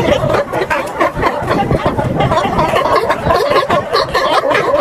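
Sea lions barking and growling, many calls overlapping with no let-up, as two of them spar neck-to-neck.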